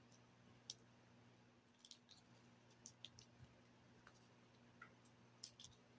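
Near silence over a low steady hum, with about ten faint, sharp clicks and rustles scattered through. They come from a kitten pouncing on and batting a feather teaser wand toy on carpet.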